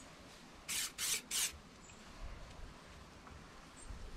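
Small compressed-air paint spray gun triggered in three short hisses in quick succession, about a second in.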